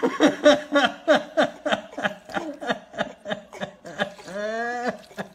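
A person laughing: a quick rhythmic run of laughs, about three or four a second, ending near the end in one long drawn-out voiced sound.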